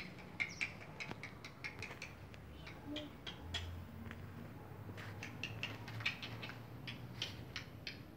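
Maritacas (small parrots) in a coconut palm giving a rapid, irregular chatter of short, sharp, squeaky calls.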